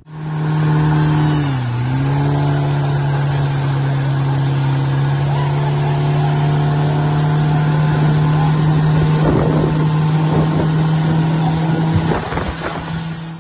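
Motorboat engine running steadily, its pitch dipping briefly about a second and a half in, then holding level.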